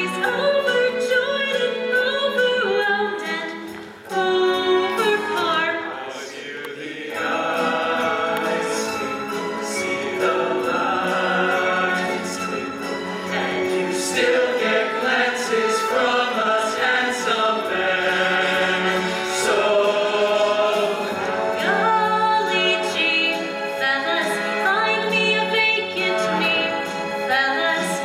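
A musical-theatre cast singing a show tune together in chorus, with musical accompaniment, breaking off briefly about four seconds in.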